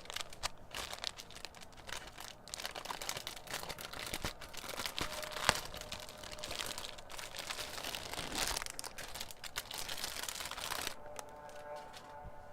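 Packaging crinkling and rustling as it is handled and unwrapped, with a single sharp click about halfway through; it quietens in the last second or so.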